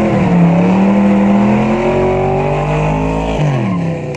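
Car engine running at high revs with a wavering pitch, which drops away about three and a half seconds in as the revs fall.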